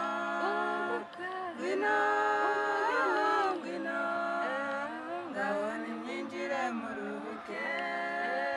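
A group of women singing a Kinyarwanda song together, several voices in harmony, with short breaks between phrases.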